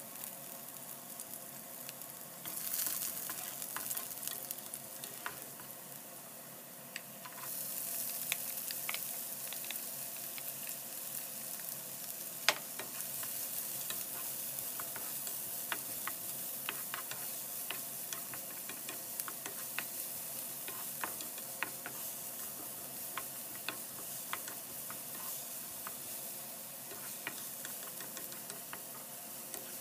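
Chopped garlic and diced onion sizzling in hot oil in a nonstick frying pan, stirred with a wooden spatula that scrapes and clicks against the pan. The sizzle gets louder about two seconds in and again about seven seconds in.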